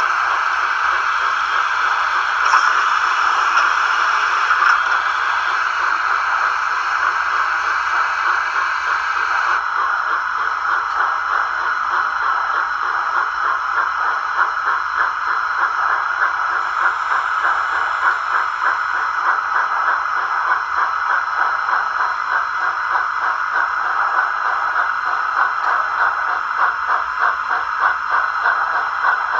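Model steam locomotives running on a layout: a steady, rapid pulsing hiss of chuffing and running gear. A brighter, higher hiss over it stops abruptly about ten seconds in.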